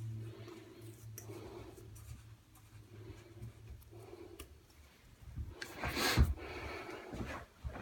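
Scratchy rubbing and handling noises with a few light clicks, and a louder scrape about six seconds in.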